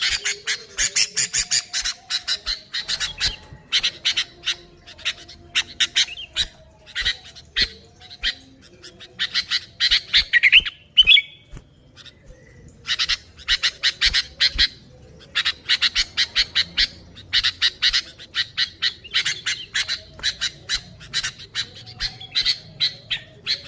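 Sooty-headed bulbuls (kutilang) chattering noisily in fast runs of short, harsh notes, about five or six a second. The runs break off in pauses about a third of the way in and again near the middle, just after a short rising whistled note.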